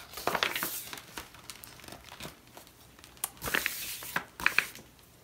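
Crinkling and rustling of a picture book being handled as it is opened and its pages turned, in a string of short rustles.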